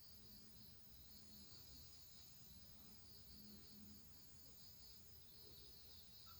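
Near silence, with a faint, steady, high chirring of crickets in the background.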